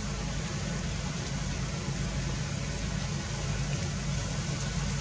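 Steady low rumble with an even hiss and no distinct events.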